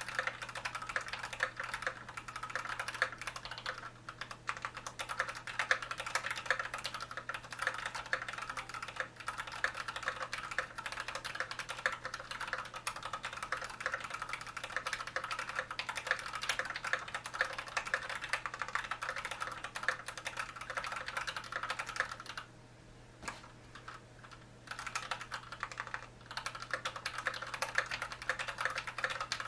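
Continuous fast typing on a KBD67 mechanical keyboard with broken-in, unlubed Cherry MX Red linear switches on a stainless steel plate, a dense stream of key clacks. The typing pauses for about two seconds a little after three quarters of the way through, then resumes.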